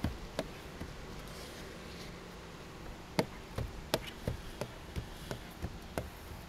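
Hand squeegee working water out from under wet window tint film on a truck's door glass: short, irregular squeaks and ticks of the squeegee on the wet glass, sparse at first and coming thicker from about three seconds in.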